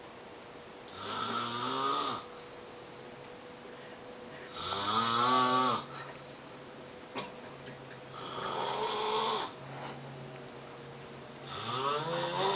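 Someone snoring loudly and regularly: four long snores about three and a half seconds apart, each rising in pitch as it goes.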